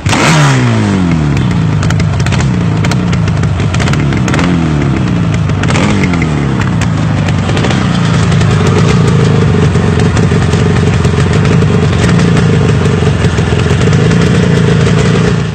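Yamaha RD350's two-stroke parallel-twin engine revved in four sharp throttle blips, the revs falling away after each, then held at a steady speed, with crackles through the exhausts.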